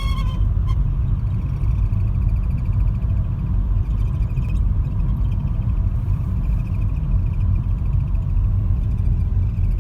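Steady low road and engine rumble inside a moving car's cabin, with a faint high-pitched whistle running over it.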